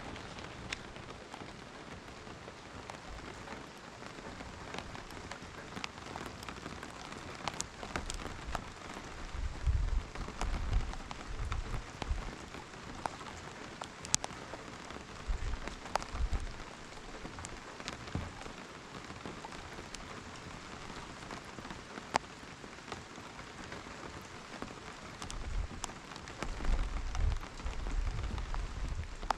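Steady rain falling, with many individual drops ticking sharply on a surface, and low rumbles coming and going a few times.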